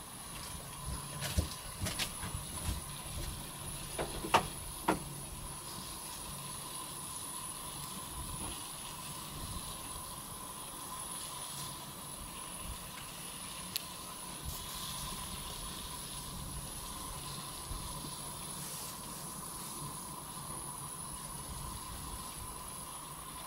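Water boiling in a metal stockpot on a gas burner with glutinous rice balls cooking in it: a steady hiss of bubbling water. Several sharp clicks come in the first few seconds.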